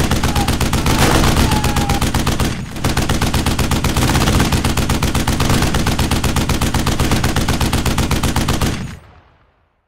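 Rapid automatic machine-gun fire sound effect, a fast, steady stream of shots with a brief break about two and a half seconds in, cutting off shortly before the end.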